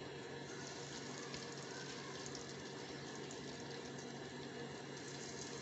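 Faint sizzling and fine crackling of hot oil as dollops of urad dal batter fry in a pan, a little brighter from about half a second in.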